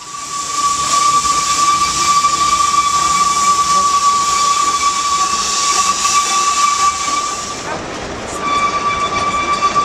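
A narrow-gauge steam locomotive's whistle blown in one long steady blast of about seven and a half seconds over the hiss of steam, stopping briefly and then sounding again near the end.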